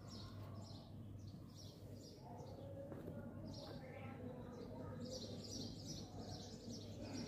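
Small birds chirping faintly, many short high calls throughout, over a low steady hum.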